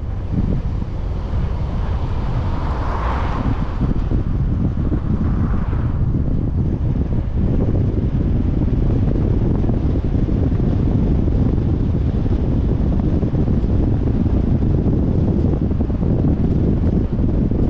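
Wind buffeting the microphone of a car-mounted GoPro action camera while driving, a steady low rumble, with a brief swell of hiss about three seconds in.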